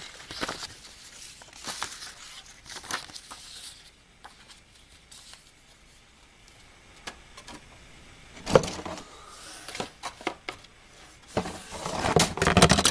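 Plastic model-kit parts and their cardboard box being handled as the kit is packed away: crinkling and rustling with scattered clicks and knocks. Quieter for a few seconds in the middle, a sharp knock about eight and a half seconds in, and denser rustling near the end.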